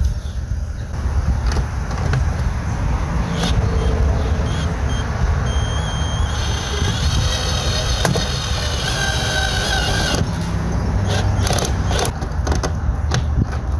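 Cordless drill driving license-plate screws: the motor whines in short runs, the longest from about six to ten seconds in, then a few sharp clicks near the end, all over a steady low rumble.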